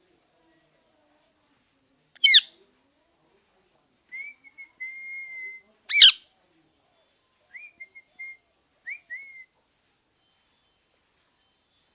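Parrot calling: two short, loud, shrill calls about four seconds apart, with softer level whistled notes between them and a few short whistles after.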